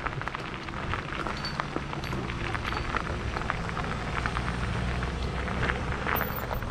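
Tyres rolling slowly over a gravel road, giving a steady crackle of small stones popping under them over a low rumble.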